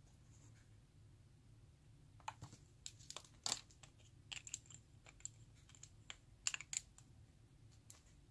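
Scattered light clicks and taps of small plastic items being handled: gel tubes and caps knocking against each other and the plastic tray. They begin about two seconds in and come irregularly for about five seconds.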